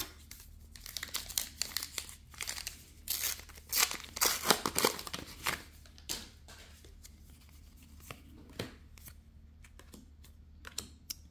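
A trading card booster pack wrapper being torn open and crinkled: a run of tearing and crinkling rustles, loudest a few seconds in. After that come quieter, scattered clicks of cards being handled.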